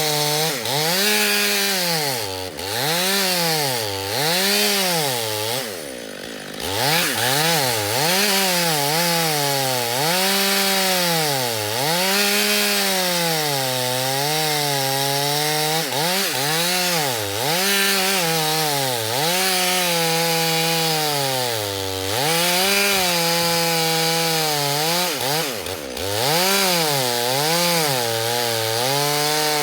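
Gasoline chainsaw sawing through a thick log. The engine's pitch sags and climbs back again and again, about every second or two, as it works through the cut.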